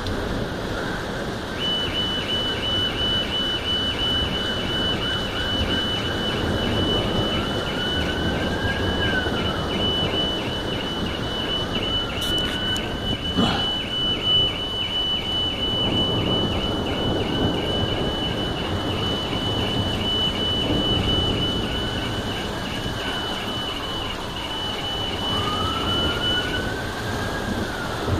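Car alarm going off: a rapid high beeping starts about two seconds in and stops near the end, with a rising-and-falling wail repeating every few seconds, over the steady hiss of heavy rain. A brief sharp crack sounds about halfway through.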